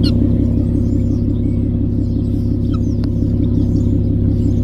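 A vehicle engine idling with a steady low hum, with a few faint high chirps over it.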